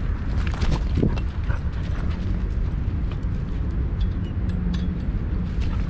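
Steady low rumble of wind and rubbing on a camera strapped to a walking dog's harness, with a few sharp clicks and a creak about a second in, as of a chain-link gate latch.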